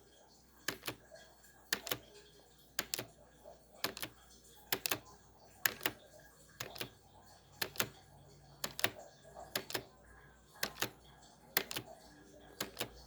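Timer ticking at 0.7x speed: a pair of sharp clicks about once a second.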